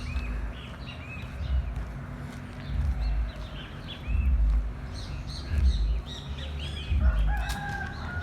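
Small birds chirping repeatedly over bursts of low rumble. About seven seconds in, a steady tone at two pitches starts and holds to the end.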